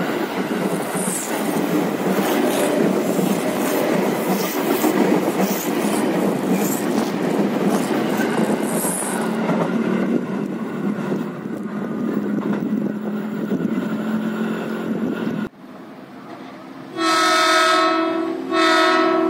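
Electric commuter train (ex-JR 205 series EMU) running past close by on a curve: a steady rumble with wheels clacking over rail joints and brief high wheel squeals. About three-quarters through, the sound cuts off and the horn of an approaching KRL commuter train (Tokyo Metro 6000 series) sounds twice, a long blast and then a shorter one.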